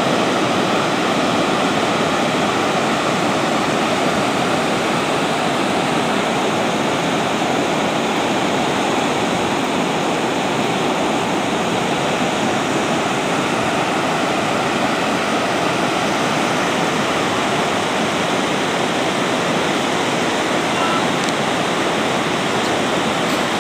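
Steady rushing noise of ocean surf breaking along a sandy beach.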